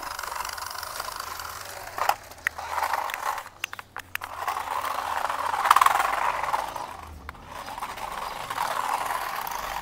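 Toy remote-control cars driving, their small motors and plastic wheels making a steady whirring rattle, with a few sharp clicks about two to four seconds in.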